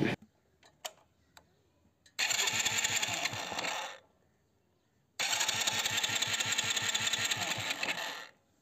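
Hero Splendor iSmart's electric starter cranking the single-cylinder engine in two bursts, the second longer, with a quick regular pulse of compression strokes; the engine does not catch. The bike has lost its ignition spark after running hot, and it is being cranked to check for spark at the plug.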